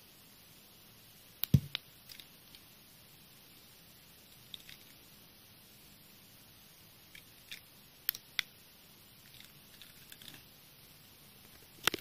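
Scattered small clicks from the buttons of a keychain remote and the hand holding it, over a faint steady hiss. There is a sharp thump about a second and a half in and another near the end.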